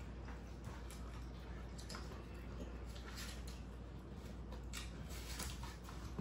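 People chewing and eating takeout food, with scattered small clicks and rustles from plastic forks, napkins and foam containers over a low steady hum.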